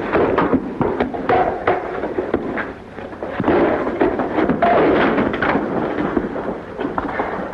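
Movie fistfight sound effects: a rapid, irregular run of thuds, knocks and crashes from a scuffle.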